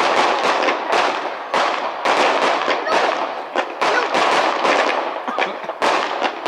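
Display fireworks going off in a rapid barrage: sharp bangs about two a second over continuous crackling.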